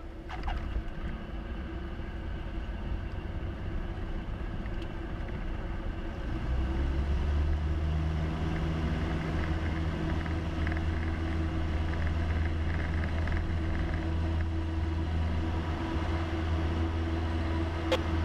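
Single-engine Cessna's piston engine and propeller droning inside the cabin. The drone grows stronger and louder about six seconds in as power is added, then holds steady. A couple of faint clicks are heard, one near the start and one near the end.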